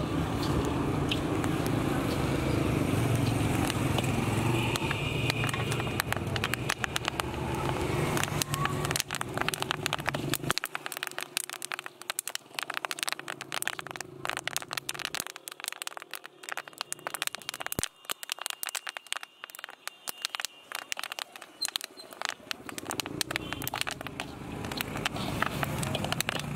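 Hot sand and grain being stirred and scraped with a metal scoop in a large iron roasting pan, with dense rapid crackling from the corn kernels and chickpeas roasting in the sand. A low rumble runs under the first ten seconds or so and then drops away.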